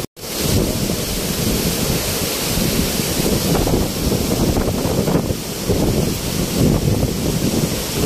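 Steady rushing of a tall waterfall pouring onto rocks, with wind and spray buffeting the microphone. The sound drops out for a split second at the very start.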